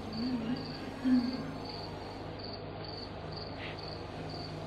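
Crickets chirping in a steady rhythm, about two chirps a second, over a steady low hum. A short, wavering low hum comes up about a second in.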